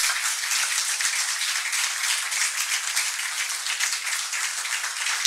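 Audience applauding: many people clapping, a dense continuous patter that starts abruptly and holds steady.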